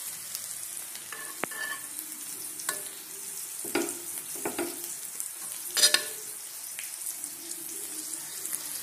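Sliced onions sizzling steadily in hot oil in a kadhai. A steel spatula scrapes and knocks against the pans several times as paste is scooped in, loudest about six seconds in.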